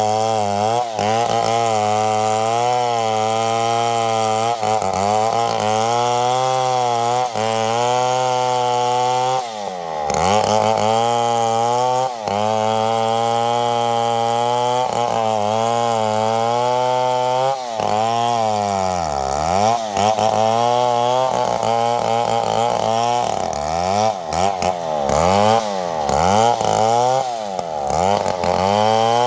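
Two-stroke chainsaw running throughout, cutting into a large mahogany log, its engine note wavering under load. About ten seconds in the revs dip briefly. Later the engine repeatedly drops and climbs back as the saw bogs in the cut and revs up again.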